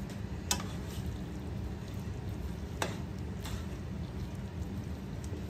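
A utensil stirring cooked shell macaroni and ground beef in a large skillet, with a few sharp knocks of the utensil against the pan over a steady low background hum.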